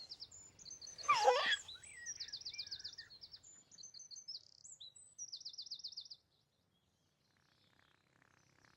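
Birdsong: high chirps and quick repeated trills, with one short falling whoop about a second in. The birds stop abruptly about six seconds in.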